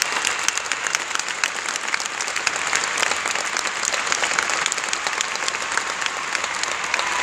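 Large audience applauding: a dense, steady patter of many hands clapping.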